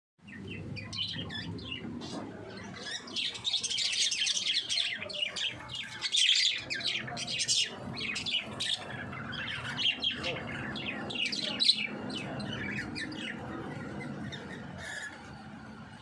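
A flock of budgerigars chattering: rapid, overlapping chirps and warbles, busiest about three to five seconds in and thinning out toward the end.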